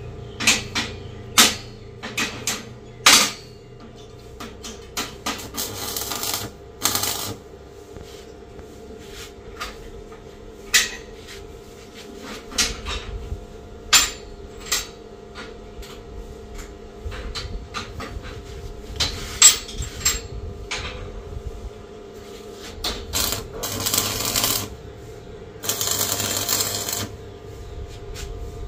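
Arc (stick) welding on a steel window grill: a few crackling bursts about a second long, with many sharp metallic taps and clicks between them, over a steady low hum.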